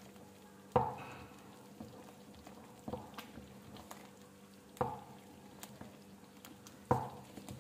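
A wooden spoon stirring soup in an aluminium pot, knocking against the side of the pot about every two seconds: four clear knocks, with fainter scrapes and taps between them.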